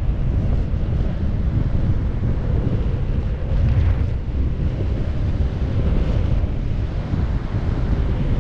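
Wind rushing over a helmet-mounted GoPro Max camera's microphone during parachute canopy flight: a steady, low rumble of wind noise.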